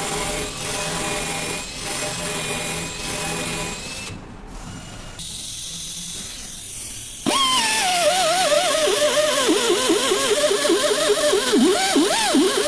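A power tool, drill-type, running with a steady whine for about four seconds while a tyre puncture is worked for a mushroom-plug repair, then quieter. From about seven seconds in, loud music with a wavering, swooping voice takes over.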